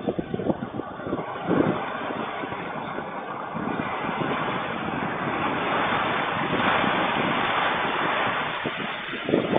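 Strong gusty wind blowing hard and buffeting the microphone, swelling to its loudest about six to eight seconds in.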